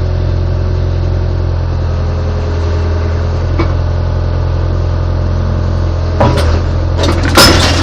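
Caterpillar excavator's diesel engine running steadily, heard from inside the cab, with a few clunks near the end, the loudest just before it ends.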